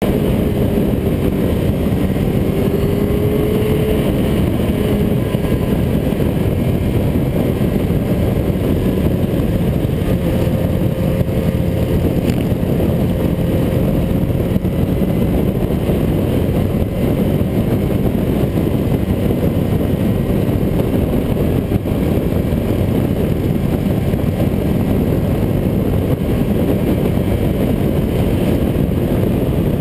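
Motorcycle riding at road speed, heard from a camera on the bike: a steady rush of wind noise over the engine's drone, the engine's pitch drifting slightly up and down.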